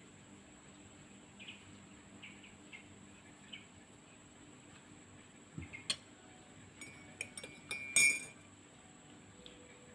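Light clinks of metal cutlery on ceramic: a few small taps from about six seconds in, then the loudest, a ringing clink of a spoon stirring inside a ceramic coffee mug about eight seconds in.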